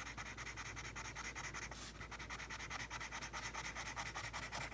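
Wax crayon colouring in on paper: rapid, even back-and-forth scribbling strokes, about nine or ten a second.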